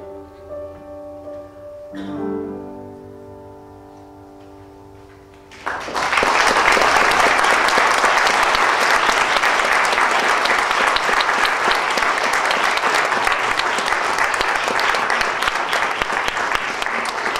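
Piano playing the closing chords of the song, the last chord struck about two seconds in and left to fade. At about six seconds a loud round of audience applause breaks out and keeps going.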